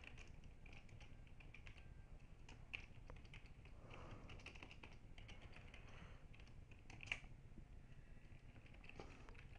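Faint typing on a computer keyboard: irregular keystrokes, with two louder key clicks about three and seven seconds in.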